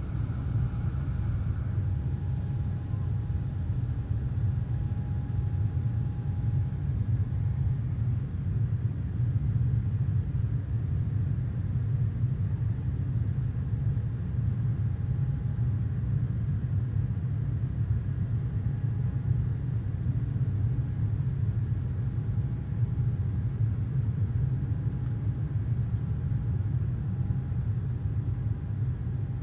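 Jet airliner cabin during the climb just after takeoff: the wing-mounted engines and rushing air make a steady, loud low rumble, with a faint steady whine above it. A higher tone stops about two seconds in.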